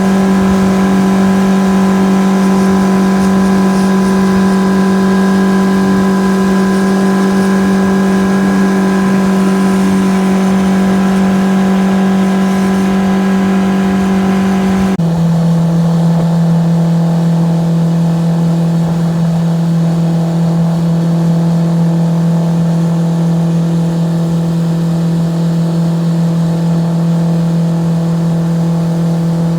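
A boat's motor running steadily at speed, a loud constant hum with a rushing haze over it. About halfway through, the pitch drops abruptly to a lower steady hum.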